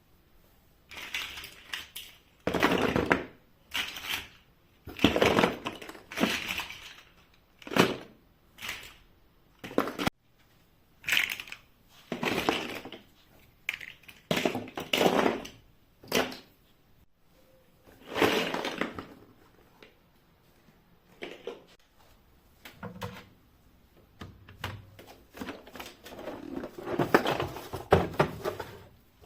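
Household items being handled in a series of irregular rustles, scrapes and knocks, each lasting a second or less, with short pauses between them.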